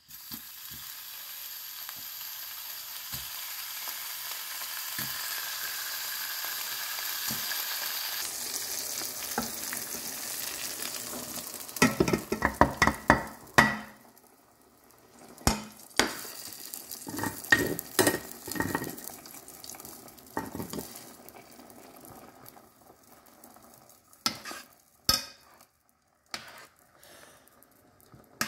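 Bacon sizzling in a stainless steel frying pan, a steady hiss that grows louder over the first several seconds. About twelve seconds in, a quick run of sharp metal clinks and scrapes as the pan is scraped out into a pot of pigeon peas, then scattered knocks of a spoon against the pot.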